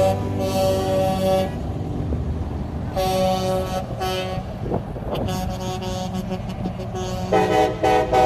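Air horns of passing semi and dump trucks sounding three steady blasts: a long one at the start, a shorter one about three seconds in, and the loudest near the end. Under them runs the steady rumble of truck engines and tyres going by.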